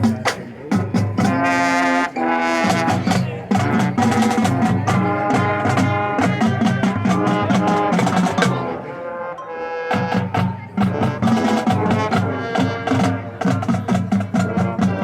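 Marching band playing, with brass chords over a drumline. The full band is loud with regular drum hits throughout, easing into a softer passage about nine seconds in before the full band comes back.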